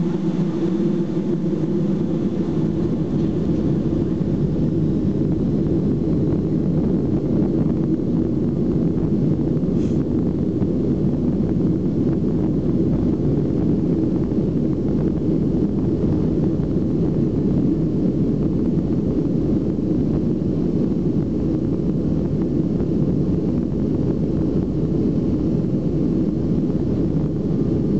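Cabin noise of a Boeing 757 on its takeoff roll: the engines at takeoff power and the rumble of the runway, heard from inside at a window seat over the wing as a steady, loud, low rumble. A faint engine hum at the start blends into the rumble within the first second or two.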